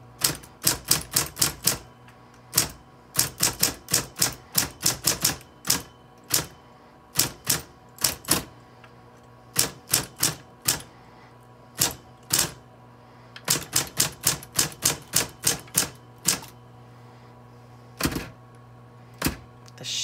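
Smith-Corona Coronet Super 12 electric typewriter being typed on: quick runs of sharp key strikes, with short pauses between the runs and a few slower, single strikes near the end. The electric motor hums steadily underneath.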